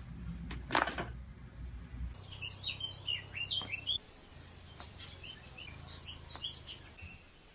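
A sharp crack about a second in, typical of a chiropractic back adjustment. It is followed by a small bird chirping in two runs of quick, high chirps over a low steady hum.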